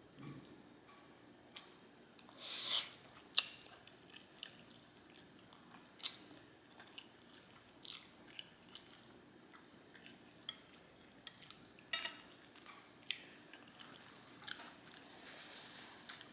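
Close-up mouth sounds of a person eating black bean noodles: quiet wet chewing and lip smacks, with scattered short sharp clicks and one louder burst about two and a half seconds in.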